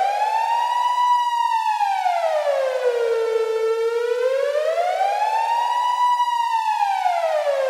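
Police siren in wail mode, its tone sliding slowly up and then back down, about five seconds per rise and fall; it climbs to its high point twice.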